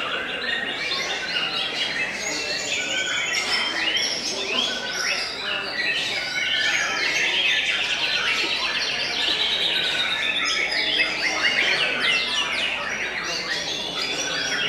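White-rumped shamas singing at once in a dense, unbroken mix of whistles, chattering notes and rapid trills, with a fast run of repeated notes about halfway through.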